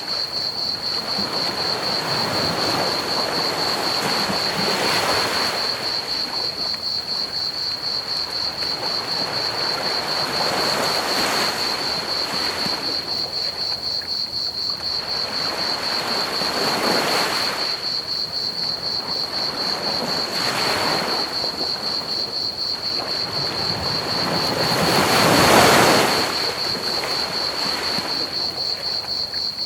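Ocean waves breaking on a beach, a swell rising and falling every few seconds, the biggest about three quarters of the way through. Underneath is a steady fast trill of crickets chirping and a constant hiss of pink noise.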